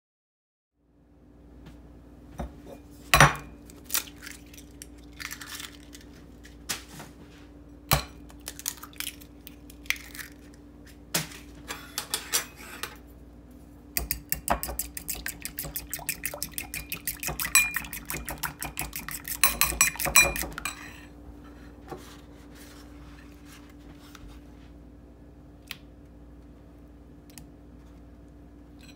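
A fork beating eggs in a ceramic bowl: a fast, dense run of clinks against the bowl lasting about seven seconds, in the middle. Before it come scattered sharp knocks and clinks of kitchenware, and a low steady hum runs underneath.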